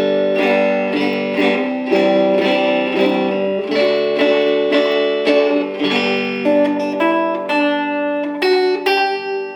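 Homemade electric oil-can banjo, a five-string banjo neck on a Marvel Mystery Oil can with a lipstick tube pickup, played through a Line 6 amp on its twang setting with a little echo. A run of picked chords and notes, each ringing on.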